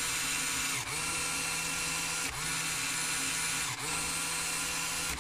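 LEGO Technic electric motor driving a plastic gear train, whirring steadily as it spins the winch gear. Three times, about every second and a half, it briefly slows and spins back up with a quick rise in pitch.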